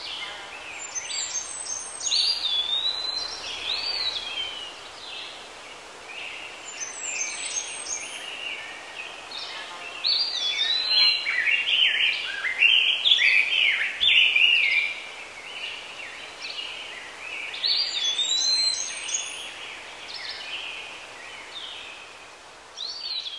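Songbirds singing: groups of quick chirps and whistled slurs lasting a few seconds each, busiest around the middle, over a steady faint hiss of outdoor ambience.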